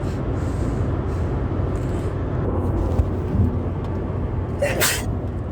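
Steady car-cabin road and engine noise while driving, with one sneeze near the end.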